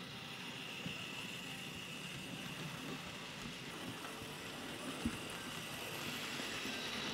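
Hornby OO gauge model of Henry the Green Engine, tender-driven, running along the track with a train of vans: a faint steady whir of the motor and wheels on the rails, growing slightly louder as it passes close, with a single click about five seconds in.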